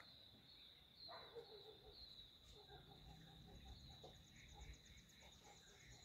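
Faint outdoor wildlife ambience, close to silence: a steady high insect trill pulsing every half second or so, a few bird calls about a second in and around three seconds in, and a fast, high pulsed trill starting a little past the middle.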